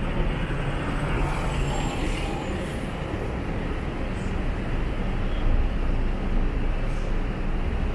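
Steady city street traffic: a continuous low rumble of passing vehicles' engines and tyres.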